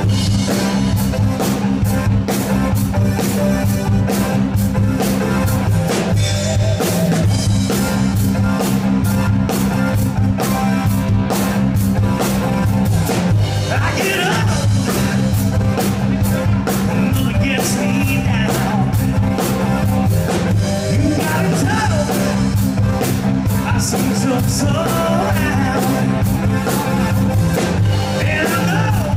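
Live rock band playing at a sound check: drum kit, bass and electric guitar, with a voice singing over it from about halfway through.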